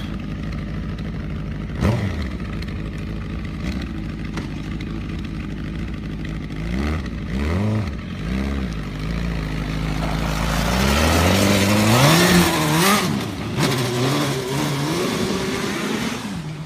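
Suzuki GSX-R1000 inline-four motorcycle engine in an off-road buggy, idling steadily with a single knock about two seconds in. It is blipped a few times around seven seconds, then revs up hard as the buggy pulls away and keeps revving as it drives off.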